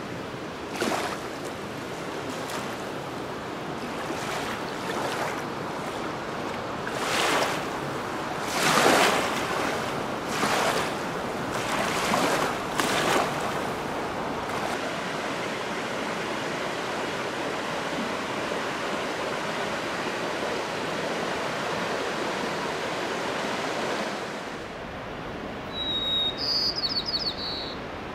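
Steady rush of river water and wind, with several louder gusts in the first half. Near the end a white-crowned sparrow sings once: an opening whistle, then a quick series of short notes.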